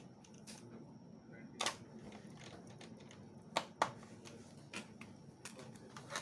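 Scattered light clicks and taps from a laptop being handled, about half a dozen at uneven intervals, two of them close together past the middle.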